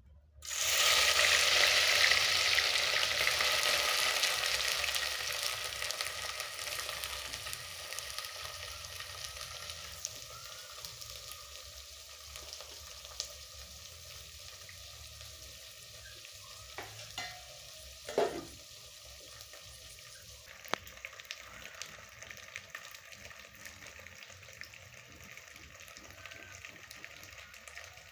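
Small dried sardines dropped into hot fat in a metal pot, bursting into a loud sizzle as they hit. The sizzle eases over several seconds into steady frying, with a couple of brief knocks about two-thirds of the way through.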